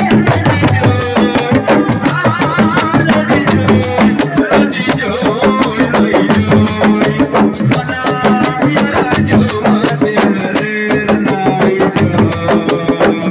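Live assiko band music: a fast, dense hand-drum and percussion rhythm with a voice over it.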